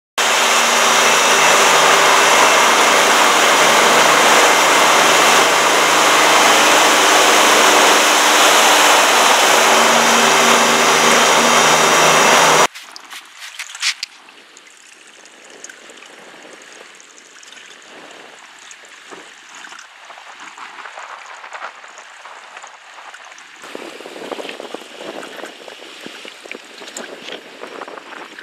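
Loud steady rushing noise with a few steady hums in it, which cuts off abruptly about twelve seconds in. After it comes quieter, uneven splashing and lapping of small waves on choppy water.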